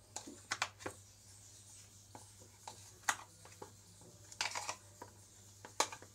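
Hand kneading moist sattu dough in a plastic bowl: irregular soft taps and clicks of hand and dough against the bowl, over a faint steady low hum.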